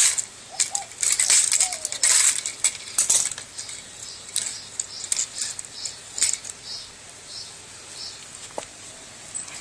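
Metal clinking and scraping as hand tools work a copper-bearing part out of a TV's chassis. A thick run of sharp clicks and scrapes comes in the first three seconds, then scattered light ticks.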